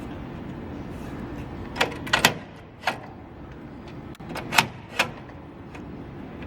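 Sharp metal clicks and clinks from push bar door latch parts being worked by hand, about six in a scattered run through the middle, over a steady low background hum.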